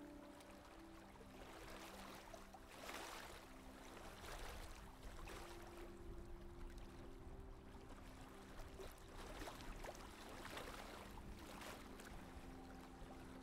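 Faint rush and splash of seawater along the hull of a sailboat running downwind under its jib, swelling and easing in surges every second or two.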